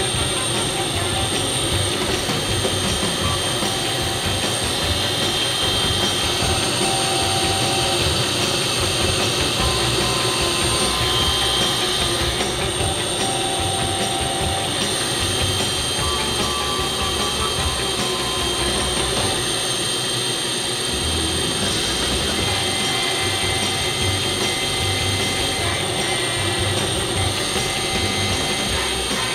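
Helicopter engine and main rotor running steadily at idle on the ramp, heard from close by on the airframe.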